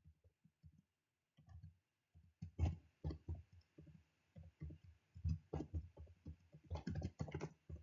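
Faint computer keyboard typing: irregular key clicks, a few scattered at first, coming thicker and faster from about two and a half seconds in.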